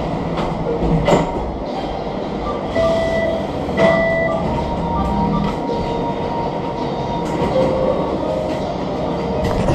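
Bank ATM at work: a steady mechanical whirring with sharp clicks, about 1 s and 4 s in, and several short electronic beeps.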